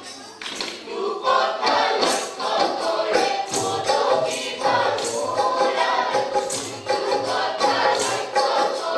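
A group of voices singing a song over steady rhythmic hand percussion. The song drops briefly at the start and comes back in about a second in.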